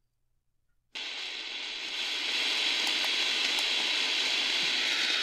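Shortwave static hiss from the Prunus J-401 portable radio's speaker. It starts about a second in, grows a little louder about a second later and then holds steady, with a few faint clicks.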